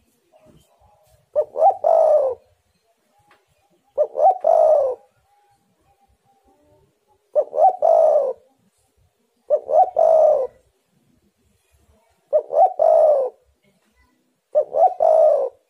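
Spotted dove cooing: six calls a couple of seconds apart, each two quick short notes followed by a longer, falling coo.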